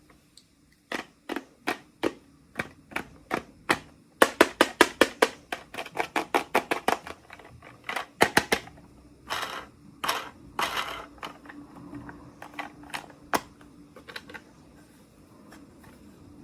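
Hard plastic toy packaging being handled and opened by hand: sharp clicks and taps, a quick run of them about four seconds in, then a few longer crinkly rustles and scrapes before the clicks thin out.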